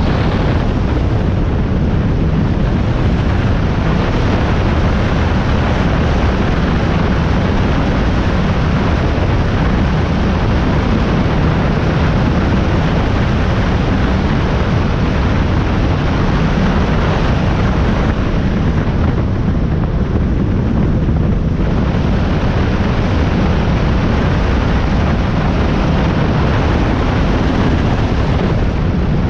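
Powerboat running at speed on open water: a steady, loud rush of engine noise, wind and water, heaviest in the low end. It runs evenly throughout, with no distinct events.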